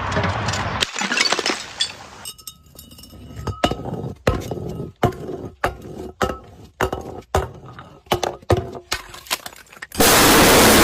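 Glass bottle breaking: a dense crunch of shattering glass, then a quick series of sharp clinks, some ringing briefly, as glass pieces strike each other. About ten seconds in, a loud steady rushing noise cuts in abruptly.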